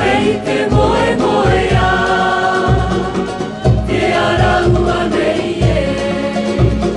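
Cook Islands song sung by a group of voices in harmony over a steady low bass beat.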